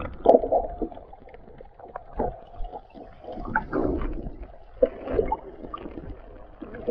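Muffled underwater sound from a submerged camera: irregular gurgling, swishes and soft knocks of water moving around it over a low rumble, with the highs cut off.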